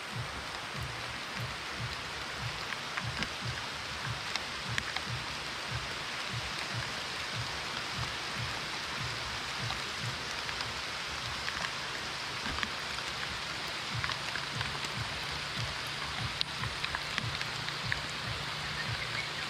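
Steady rain falling on leaves, with frequent dull taps of drops landing close by.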